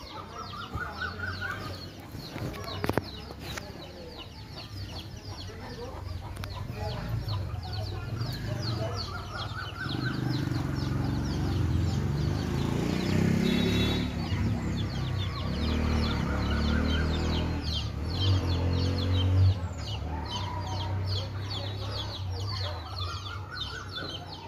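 Chickens clucking, over a dense, continuous run of quick high chirps; the clucking is loudest in the middle.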